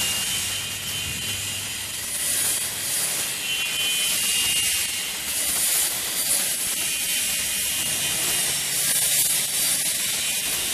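Electric saw of a wood-block cutting machine running and cutting pressed wood-chip blocks: a steady high hissing whine that swells and eases several times.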